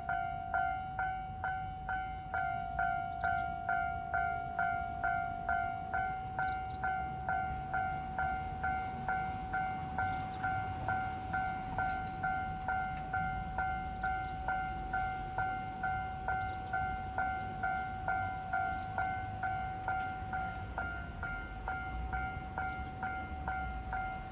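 Japanese railway level-crossing warning bell ringing 'kan-kan' in a steady, even rhythm of about two strikes a second.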